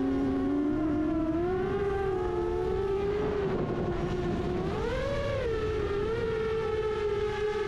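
HGLRC Rekon 6 FPV quadcopter's motors and propellers whining at a steady pitch that sags and climbs with throttle changes, with a quick rise and fall about five seconds in, over a low rushing noise.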